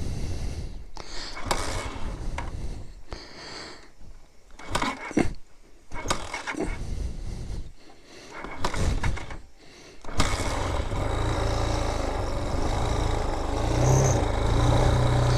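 Vitacci BSR Raven 250 dirt bike's air-cooled 250 cc engine being kick-started because the battery is too weak for the electric starter: several short kicks turn it over without it catching, then about ten seconds in it fires and settles into a steady idle, rising slightly near the end.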